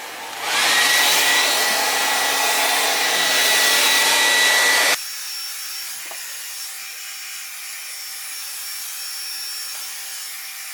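Handheld hair dryer switched on: its motor whines up to a steady high pitch over a loud rush of air. The sound cuts off suddenly about five seconds in, leaving a faint steady hiss.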